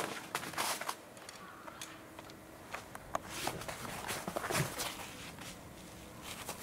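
Scattered soft footsteps, scuffs and clicks on artificial turf as a dog moves around playing fetch.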